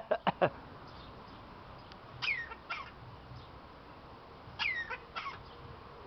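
Parrot coughing: a quick run of short, sharp cough sounds right at the start. Then come two pairs of short calls falling in pitch, about two and four and a half seconds in.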